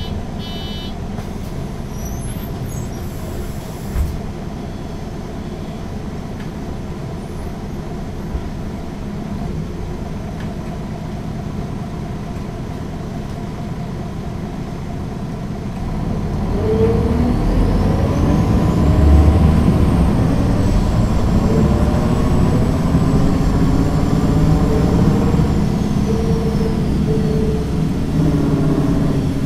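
MAN NG 313 articulated bus with a Voith automatic gearbox idling, with two short beeps near the start and a thump about four seconds in. About sixteen seconds in the engine picks up and the bus pulls away, the engine note rising, with a high whine that climbs, holds and then fades.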